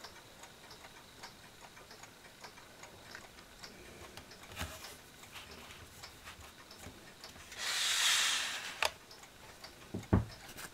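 Mechanical clock ticking steadily and faintly. A brief rustling hiss comes about three-quarters of the way through, then a dull thump near the end.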